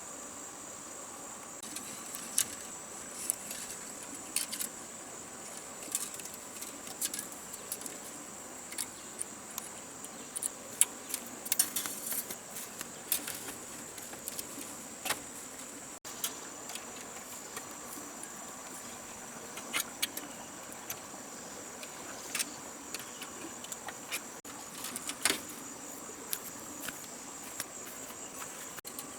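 Steady high-pitched drone of insects, crickets or similar, with a fainter steady tone beneath it. Irregular sharp clicks and taps come and go throughout, the loudest sounds in the stretch.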